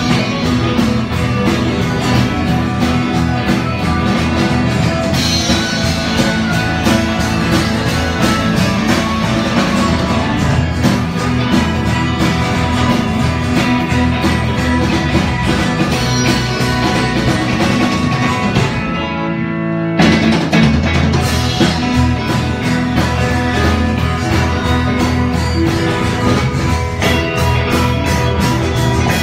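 A live rock-blues band playing: acoustic and electric guitars over a drum kit, with steady drum strokes. About two-thirds of the way through, the drums drop out for a second or so while held notes ring on, then the full band crashes back in.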